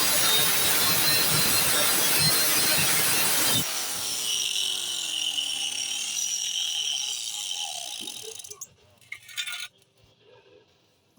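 Angle grinder with a grinding disc working a weld, a loud, harsh, steady grinding noise. About three and a half seconds in the disc comes off the metal and the grinder is switched off, its motor winding down with a falling whine that fades out over about five seconds, leaving near quiet with a couple of faint knocks.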